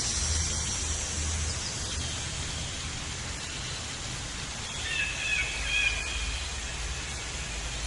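Steady outdoor hiss with a low rumble, and a short animal call, most like a bird, with a few gliding notes about five seconds in.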